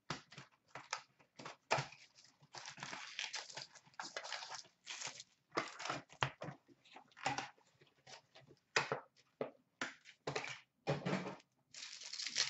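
Freshly opened 2015-16 O-Pee-Chee Platinum hockey cards being handled and flipped through by hand, sliding against each other in a run of short, irregular rustles and scrapes, a few of them longer.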